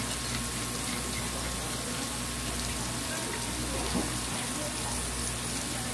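Steady rush of running water with a constant machine hum, faint voices behind it.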